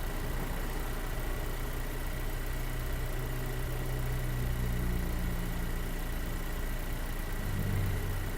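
Renault Duster's turbo petrol engine idling, with a thin steady high whistle over the engine hum. The engine picks up slightly around the middle and again near the end.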